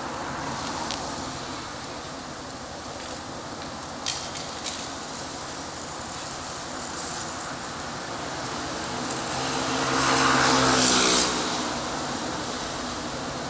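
Street traffic going by, with one car passing close late on: its engine and tyre noise swell and fade. There are two short clicks about four seconds in.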